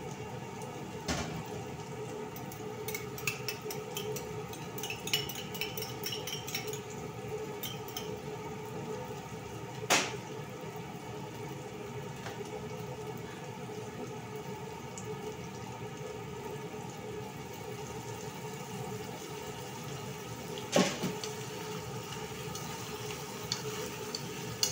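Cooking at a gas stove: a steady kitchen hum with scattered light clicks. Two loud, sharp knocks of cookware come about ten seconds in and again about eleven seconds later.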